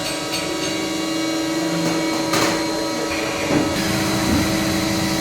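CNC machine running: a steady machine whine made of several held tones over a noisy hum. There is a short burst of noise about two and a half seconds in, and the tones shift a little after three and a half seconds.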